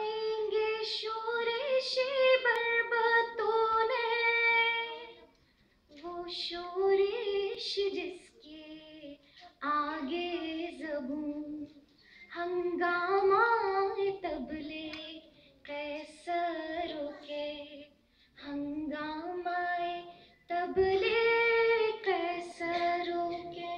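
A woman singing an Urdu ghazal solo and unaccompanied, in long ornamented phrases with short pauses for breath between them.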